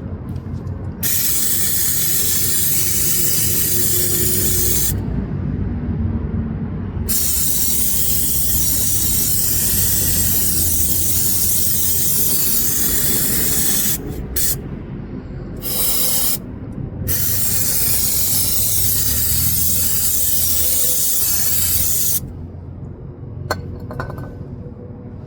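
Aerosol can of brake cleaner spraying in four long hissing bursts of a few seconds each, with short pauses between, degreasing the area around the crankshaft seal.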